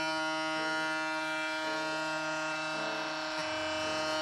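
Andis Profoil Lithium titanium foil shaver running with its foil head removed, the bare cutters oscillating with a steady, even electric buzz.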